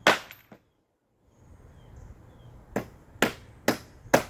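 Hammer blows driving nails: one strike right at the start, then after a short silence four strikes about half a second apart.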